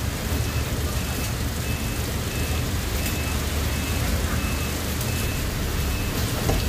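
Inside a city bus: the engine runs with a steady low hum while a short, high-pitched electronic beep repeats about every two-thirds of a second.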